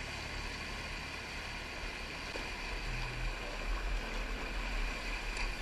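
Whitewater rushing in a muddy creek rapid, a steady rush of noise that grows a little louder and choppier in the second half as the kayak moves through the current.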